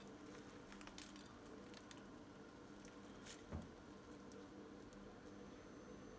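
Near silence: faint soft crackles of a freshly baked croissant being pulled apart by hand, with one soft thump about three and a half seconds in, over a low steady hum.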